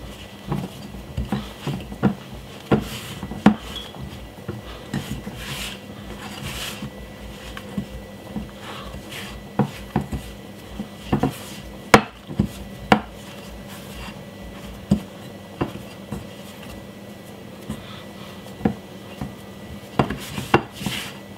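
Hand kneading a stiff plain-flour-and-water dough in a glass bowl: irregular knocks and taps of knuckles and dough against the glass, with soft rubbing between. The loudest knocks come about twelve and thirteen seconds in.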